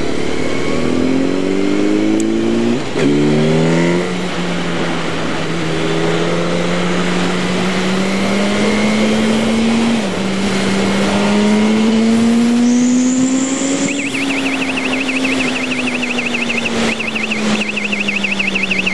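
2007 Yamaha YZF-R1 inline-four engine under acceleration, heard from the bike with wind noise on the microphone. The revs climb through quick upshifts in the first few seconds, then pull slowly higher through another shift about ten seconds in and ease off. A rapid warbling electronic beep starts about fourteen seconds in.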